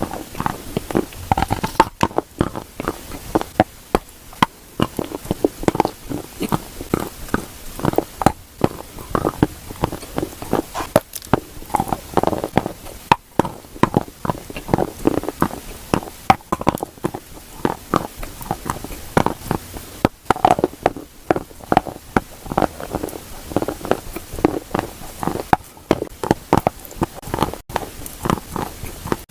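Close-miked crunching of dry clay coated in paste: a dense, irregular run of crisp crackles and crunches, several a second, with no break.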